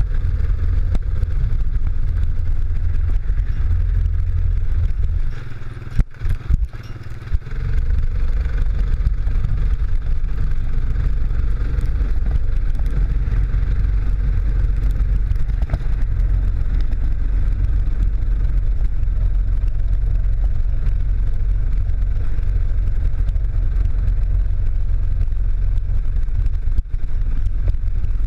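ATV engine running steadily as the quad drives along a dirt trail, heard from a camera mounted on it, with heavy low rumble. About six seconds in it eases off for a couple of seconds, with a few sharp knocks, then picks up again.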